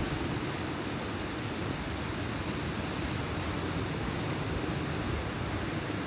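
Steady rushing noise of sea surf and wind on an open beach, with no single event standing out.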